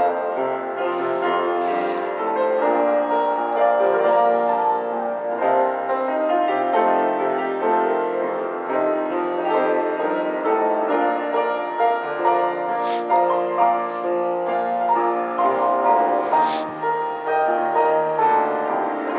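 Instrumental piano music: slow, sustained chords and melody playing without a break.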